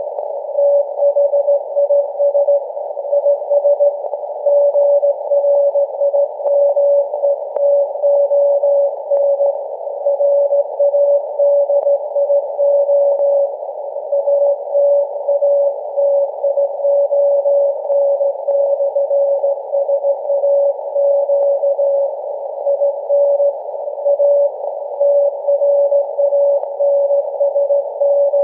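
Morse code from SAQ Grimeton's Alexanderson alternator on 17.2 kHz VLF, picked up on a software-defined radio in LSB mode: a steady mid-pitched beat tone keyed on and off in dits and dahs over narrow-band radio hiss.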